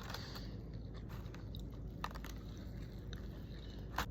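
Close-up chewing of a McDonald's breakfast biscuit sandwich, with a sharp bite about two seconds in and a louder one near the end, over a steady low hum.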